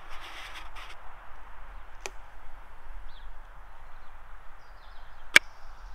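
Hands handling a 3D-printed plastic pinhole camera on a tripod: a brief rustle at the start, a small click about two seconds in, and a sharp, louder click about five seconds in, over a steady background hiss.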